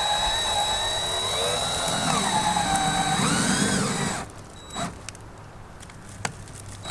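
DeWalt 20V cordless drill driving a wood screw through bamboo half-round trim into the ceiling, its motor pitch wavering up and down, then stopping about four seconds in.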